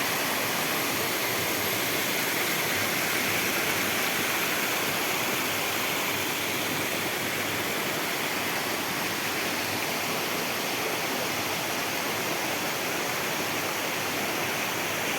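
Small forest waterfall, water falling and splashing over rock in a steady, even rush; the flow is low for want of rain.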